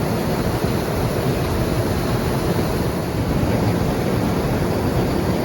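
Rice combine harvester running steadily, an even noise with no breaks or changes.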